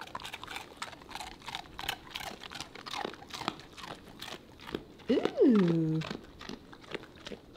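A poodle crunching and chewing a hard goat's milk dog cookie: a quick run of crisp crunches. About five seconds in comes a short vocal sound falling in pitch, louder than the chewing.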